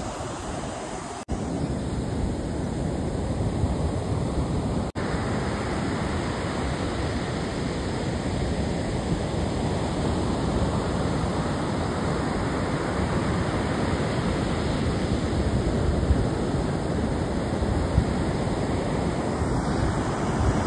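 Surf from a rough sea breaking on the beach: a steady wash of waves, with wind rumbling on the microphone. The sound drops out for an instant twice in the first five seconds.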